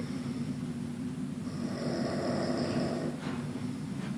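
A sleeping person snoring with a deep, heavy-bass rattle. The snoring is steady, then swells into a louder snore from about a second and a half in, fading again just before three seconds.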